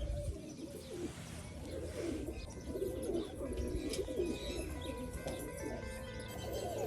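Domestic pigeons cooing: repeated low, warbling coos one after another.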